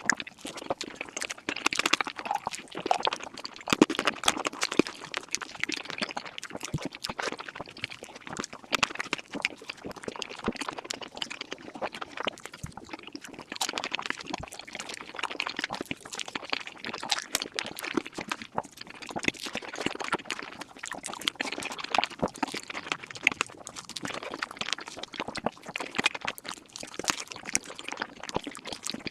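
Close-miked mukbang eating sounds sped up five times: a dense, rapid stream of chewing and mouth clicks.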